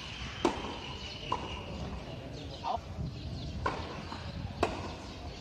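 Tennis ball pocking off rackets and the hard court during a doubles rally: about five sharp hits roughly a second apart, the first and last the loudest.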